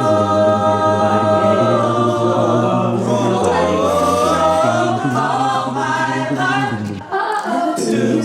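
A cappella vocal group singing: several voices hold a sustained chord, then move into shifting melodic lines, with a brief break about seven seconds in.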